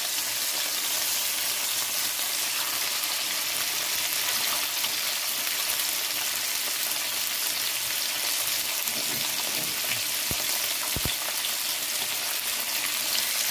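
Tilapia frying in hot oil in a nonstick pan: a steady crackling sizzle throughout. Two short dull bumps come close together about two-thirds of the way through.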